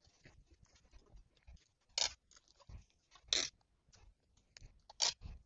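Paper being handled, with three short, sharp crunchy rasps about two, three and a half and five seconds in, from snipping A4 paper or tearing tape, amid soft rustling and a few light knocks on the table.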